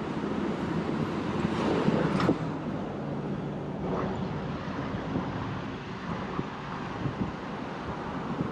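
City street ambience: a steady rumble of traffic, swelling briefly about two seconds in.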